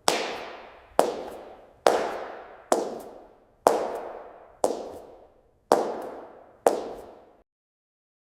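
High-heel footsteps on a hard floor: eight slow, even steps about a second apart, each a sharp heel click followed closely by a lighter tap, ringing out with a strong echo. The steps stop near the end.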